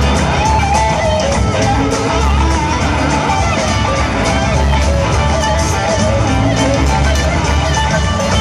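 Live rock band playing loudly, with electric guitars over bass and drums, heard from among the audience.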